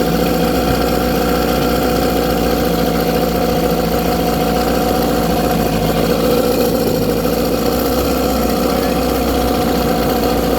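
1997 Tracker 40 hp outboard motor built by Mercury idling steadily.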